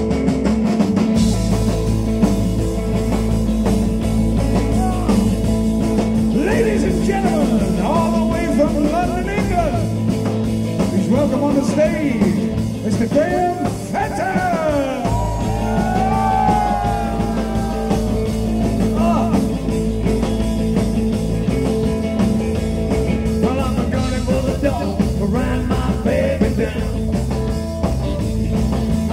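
Rock and roll band playing live: electric guitars, drums and bass.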